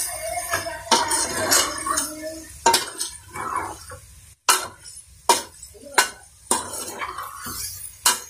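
A spoon stirring chicken pieces in an aluminium pot, knocking and clinking against the metal pot about once or twice a second.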